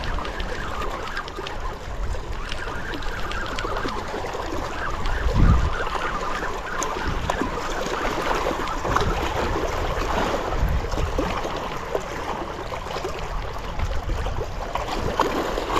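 Wind-driven choppy lake water lapping at the shore, with gusts of wind buffeting the microphone, the strongest about five and a half seconds in.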